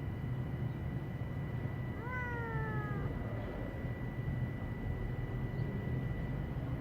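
A stray cat meows once, about two seconds in: a single call about a second long that rises briefly and then falls slowly in pitch, over a steady low rumble.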